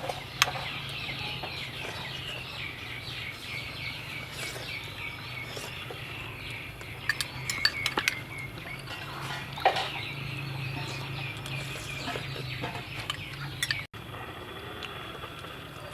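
Birds chirping rapidly in quick repeated calls for most of the first ten seconds, over a steady low hum. A few sharp clinks of cooking utensils come about halfway through.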